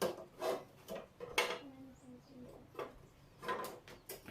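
Clatter of non-stick cookware pieces being handled and set down: a string of sharp knocks and clinks, some ringing briefly.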